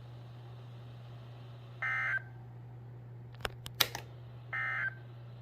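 Two short, buzzy bursts of Emergency Alert System SAME digital data tones, about two and a half seconds apart. A cluster of sharp clicks falls between them, and a steady low hum runs underneath.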